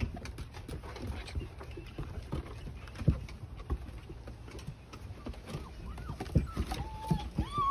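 Young puppies' paws and claws pattering and scrabbling irregularly on wooden deck boards as they play with toys, with scattered small knocks. A few short high-pitched squeaks come near the end.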